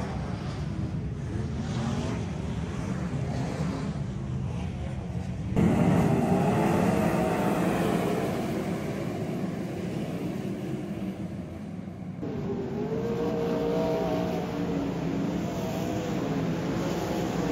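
Sprint cars racing around a dirt oval, their engines revving up and easing off as they pass. The sound jumps abruptly about five and a half seconds in and again near twelve seconds.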